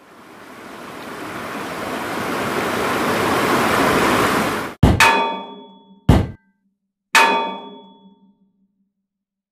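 A rushing swell of noise rising steadily for about four and a half seconds and cutting off suddenly, then three metallic clangs about a second apart, the first and third ringing on briefly.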